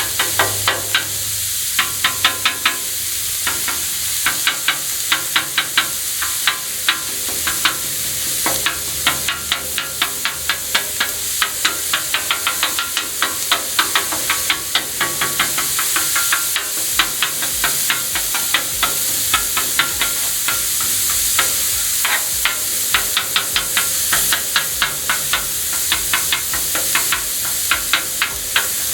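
Raw sausage sizzling on a Blackstone flat-top griddle while metal spatulas chop and scrape it against the hot steel in rapid, irregular clacks over a steady sizzle.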